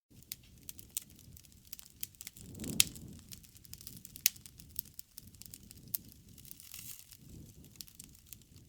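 Wood campfire crackling, with irregular sharp pops and snaps over a low rush of burning flames that swells and fades; the loudest pop comes about three seconds in.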